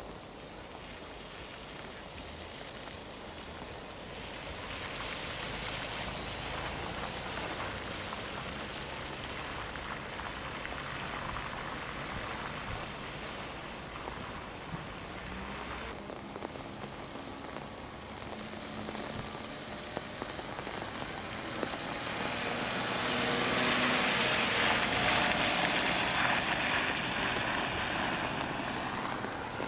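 Cars driving through standing water on a flooded, wet road: tyres hiss and splash through the puddles while engines run. The sound swells twice as cars pass, about four seconds in and most loudly from about 22 seconds in, where an engine note shows over the splash.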